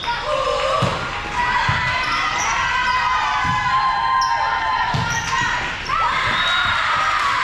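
Volleyball rally in a gym: the ball thumps about four times as players hit it, amid players' calls and echoing hall noise.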